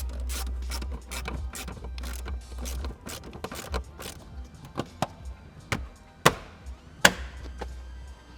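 Car interior trim and panels being clicked and knocked back into place: a quick run of clicks, then separate sharp knocks, the two loudest near the end.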